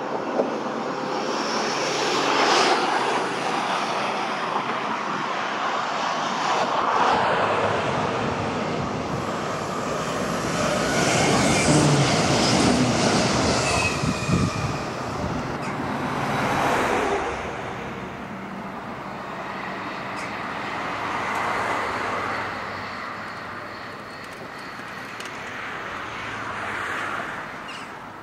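NS Sprinter Lighttrain (SLT) four-car electric multiple unit passing: a continuous rolling and running noise that swells and fades in waves. It is loudest about halfway through, with a deeper rumble, as the train goes by closest, then dies away as it recedes.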